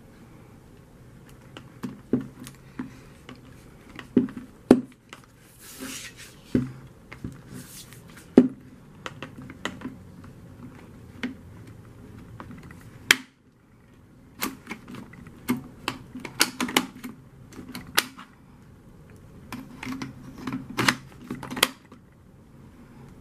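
Irregular plastic clicks and knocks from a Black+Decker cordless drill and its slide-in battery pack being handled, with the pack's release latches being pressed. The clicks come in quick clusters, with a short scraping sound about six seconds in and one sharp click about halfway through.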